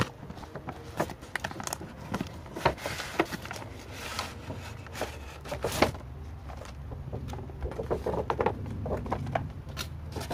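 Cardboard and plastic toy packaging being handled and opened: irregular clicks, scrapes and crinkles.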